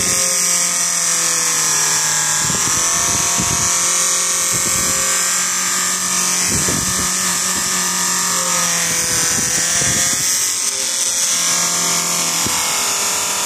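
Bench polishing machine's motor and buffing wheel running steadily, with a high whine and hiss, as a metal watch case is pressed against the compound-loaded wheel; the tone wavers a little as the pressure on the wheel changes.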